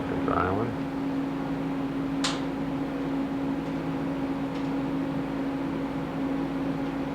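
Steady hum of surgical equipment running, a few fixed tones over an even whir, with a short hiss about two seconds in.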